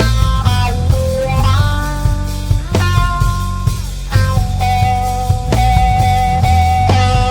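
Instrumental stoner rock: electric guitar playing a melody of long held notes over bass guitar and drum kit.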